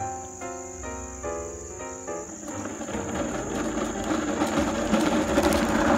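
Crickets trill steadily. A short tune of plain notes plays for about two and a half seconds. Then a plastic Lightning McQueen toy car rolls down a cracked asphalt driveway, its wheel noise growing steadily louder as it comes closer.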